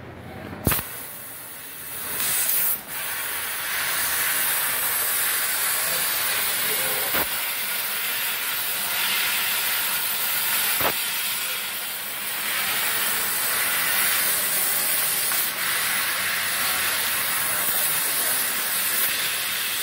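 MultiPro LCM 2500 laser cutting machine cutting metal sheet: a steady hiss from the cutting head that builds up about two seconds in and holds, with a few sharp clicks along the way.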